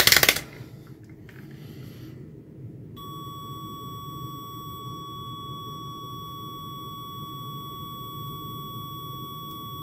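A multimeter's continuity beeper gives one steady, unbroken high beep, starting about three seconds in. It signals a closed circuit between the probe tips.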